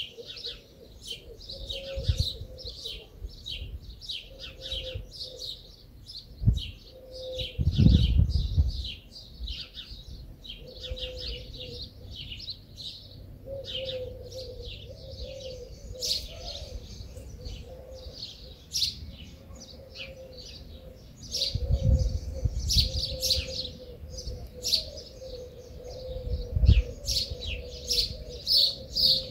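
Small birds chirping continuously in quick, overlapping short chirps, over a steady low hum. Dull low thumps break in a few times.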